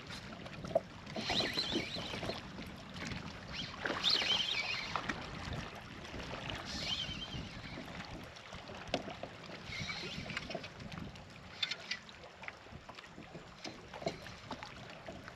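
Water sloshing and lapping against a kayak hull in swells a few seconds apart, with a few light knocks.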